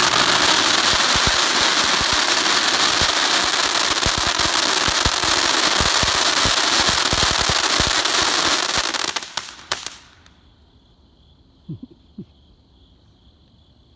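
Cat Calls firework fountain burning: a loud, steady hiss shot through with crackling pops, ending in a few sharp pops before it cuts out about ten seconds in. After that only a faint steady high-pitched tone and a couple of soft knocks remain.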